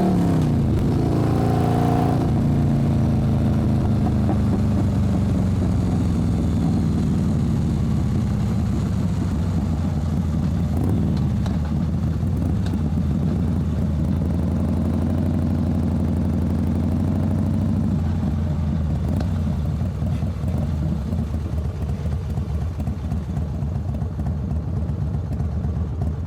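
Motorcycle engine easing off, its pitch falling over the first two seconds, then running steadily at low revs with a deep rumble that turns more uneven toward the end.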